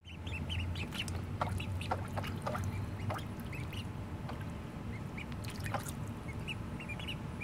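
Welsh Harlequin ducklings peeping in many short, high calls while paddling and splashing in shallow water in a plastic tub, over a low steady hum.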